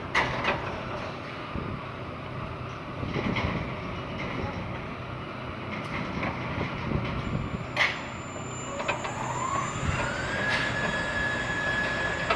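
Construction site and street noise: a steady rumble of engines and machinery with several sharp metallic clanks, and a whine that rises for about a second and a half near the end, then holds steady.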